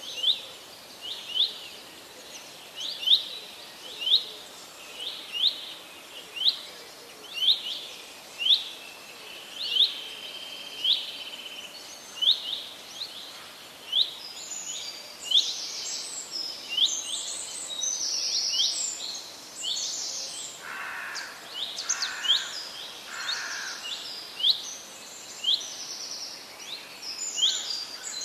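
Forest birds singing. One bird repeats a short, high, clear note every second or so, and from about halfway a second bird joins with a busier, higher song, over a soft background hiss.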